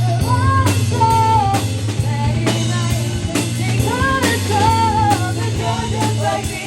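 Rock song with a steady drum-kit beat and a sustained bass line, and a wavering melody line, sung or played, over it.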